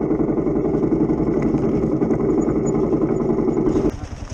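Kawasaki KLR 650's single-cylinder four-stroke engine running hard and loud, then dropping away sharply about four seconds in.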